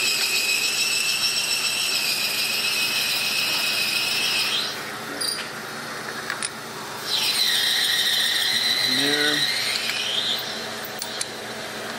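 Two long, high-pitched mechanical squeals. The first dies away about five seconds in. The second starts about seven seconds in, dips in pitch, holds steady, then rises and stops at about ten seconds. A couple of sharp metal clicks fall in the gap between them.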